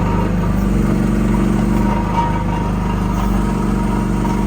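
Briggs & Stratton engine of an AGT QH12 mini excavator running steadily with the throttle raised a little, a faint steady whine riding over the engine note.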